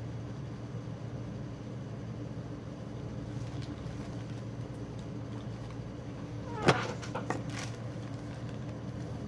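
Steady low hum, with one sharp snap of packaging being handled about two-thirds of the way through, followed by two softer crackles.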